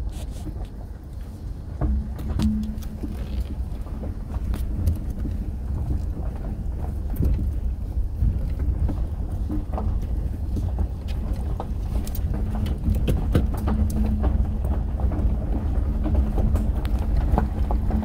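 A 2011 Subaru Outback driving down a gravel road, heard from inside the cabin: a steady low rumble from tyres and engine, with frequent sharp clicks of gravel under the tyres.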